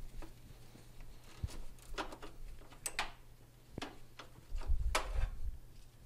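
Scattered light clicks and scrapes of hands working on a car battery, its cables and terminal clamps being handled and moved off the posts, with a low bump about five seconds in.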